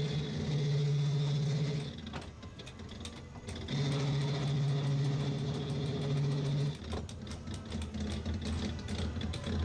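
A low, steady machine hum runs for about two seconds, stops, then starts again for about three seconds, over a background of rapid clicking.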